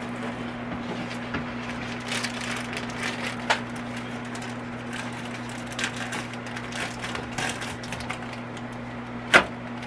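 Scissors snipping and a plastic bag crinkling as a sealed bag of breading mix is cut open, with scattered small crackles and clicks over a steady low hum. A single sharp click near the end is the loudest sound.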